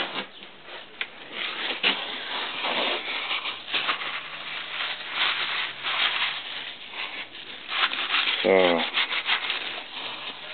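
A cloth rag rubbed and wiped over the freshly milled aluminium face of a motorcycle cylinder head, in irregular scratchy strokes. A short vocal sound about eight and a half seconds in.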